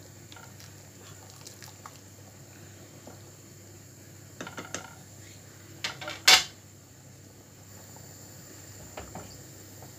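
Kitchen clatter from a stainless steel cooking pot and its metal lid. A wooden spoon stirs and knocks against the pot with a few light clicks. About six seconds in, the lid is set down on the gas stove's grate, giving the loudest clank with a brief ring, and a lighter knock follows near the end.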